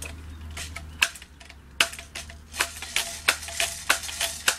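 Remington Airmaster 77 multi-pump air rifle being handled and pumped: a couple of sharp clacks, then a quick run of mechanical clicks, about three a second, as the pump lever is worked back and forth to build air pressure.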